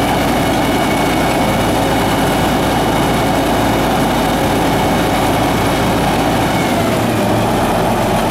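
1977 Caterpillar D8K crawler dozer's diesel engine idling: a steady low rumble with a faint, even whine above it.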